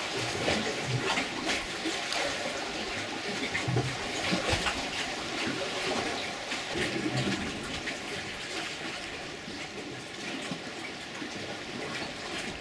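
Water splashing steadily, a crackly wash with a few soft low thuds, easing slightly in the second half.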